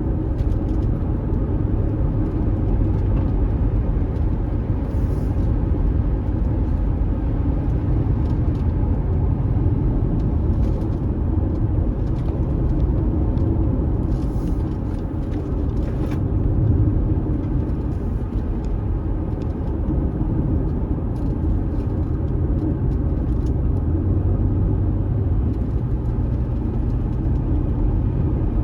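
Steady rumble of a car driving along a dusty unpaved road, engine and tyre noise together.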